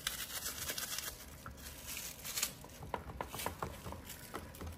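Faint eating and handling noises: scattered small crackles and clicks as a bite of KFC Chizza, a fried chicken fillet topped like a pizza, is chewed and the food and its packaging are handled.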